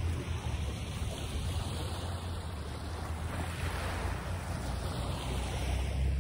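Wind and water noise: an even rushing that swells around the middle, over a steady low rumble.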